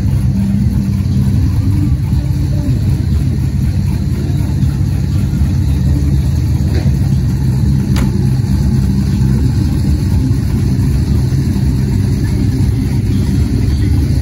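A car's engine running with a steady low rumble as the car rolls slowly past at low speed.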